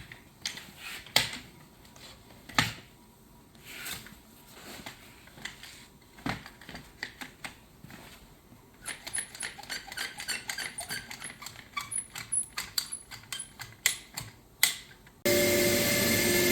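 Scattered clicks and knocks of tools and parts being handled, then a quick run of light clicking for several seconds. Near the end a CNC router suddenly starts up, loud and steady with a high whine.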